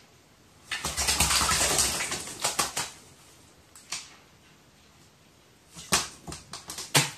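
A crow bathing in water, splashing: a flurry of splashes about a second in that lasts around two seconds, then a few separate splashes and flicks of water near the end.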